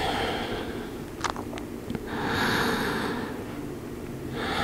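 A woman's slow, audible breathing: one breath fading about a second in, a long one from about two seconds, and the next starting near the end, with a few faint clicks between them.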